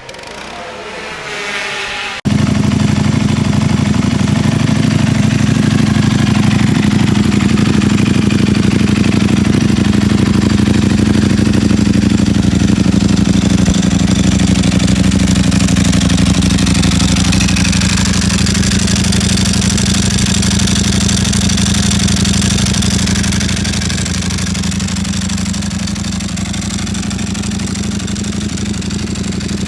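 Ducati Panigale V4 S 1103 cc V4 engine with an Akrapovic exhaust: a rising whine for about two seconds, then the engine fires suddenly and runs at a steady, loud idle, easing off slightly about two thirds of the way through.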